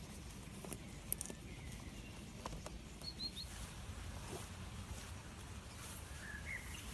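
Quiet outdoor ambience with a steady low rumble, a sharp click about a second in, and a few short bird chirps.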